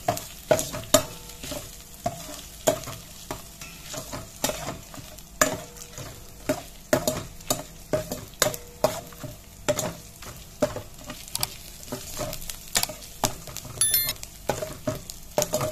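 A metal spoon stirring and scraping around a stainless steel pot, with frequent sharp clinks that ring briefly, over hot oil sizzling as whole spices (panch phoron, dried red chilli, bay leaf) and ginger fry in the tempering.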